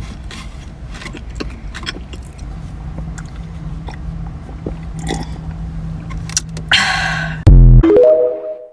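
Close-miked chewing and biting of a donut, faint mouth clicks over a steady low hum. Near the end comes a short loud noisy burst, then a very loud falling sweep and a brief ringing tone that cuts off suddenly.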